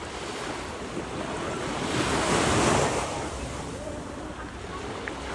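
A rushing noise that swells up to a peak about halfway through and then dies away again.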